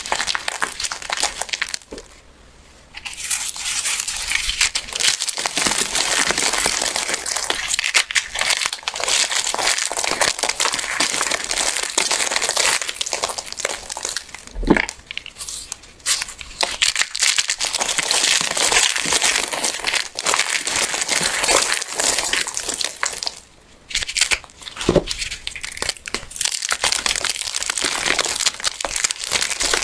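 Hands crushing crunchy golden yellow soap: a continuous dense crackling and crumbling. It breaks off briefly about two seconds in and again about three quarters of the way through, with a couple of short knocks in the second half.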